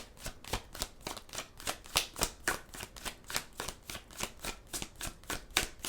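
Tarot cards being shuffled by hand: a steady run of crisp card snaps, about four a second.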